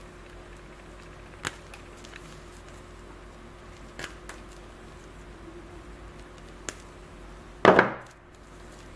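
Side cutters snipping and stripping the insulation off speaker-wire ends: a few faint, sharp clicks a couple of seconds apart. Near the end comes one louder, brief handling clatter as the coil is picked up.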